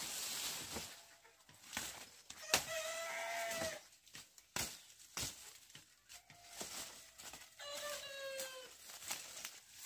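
Two drawn-out calls from a farm animal, each about a second long and steady in pitch, with scattered sharp knocks in between.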